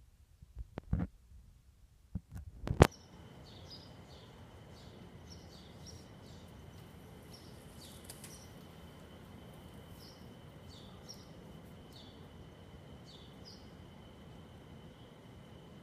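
A few sharp knocks, the loudest just before the three-second mark. Then a steady outdoor hiss with a faint steady high tone and short high chirps recurring every second or so.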